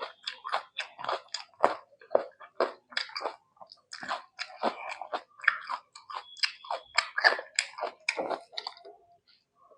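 Close-miked chewing: wet mouth smacks and clicks of a person eating, several a second, thinning out and stopping near the end.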